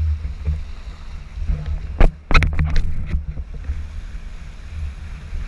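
Wind buffeting the camera's microphone as an inflatable banana boat is towed at speed over choppy sea, a steady low rumble. About two seconds in, a quick run of sharp hits breaks through.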